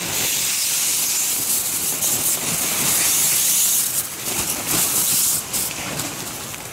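Snow sliding off a tent's fabric in a long hiss. It starts abruptly and fades out after about five and a half seconds.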